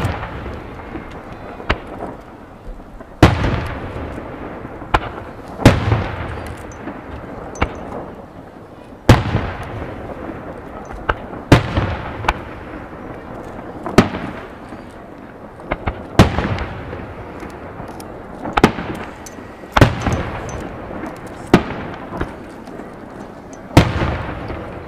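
Aerial firework shells bursting one after another in a star mine: a sharp bang about every two seconds, each trailing off in a long rolling echo, with smaller pops in between.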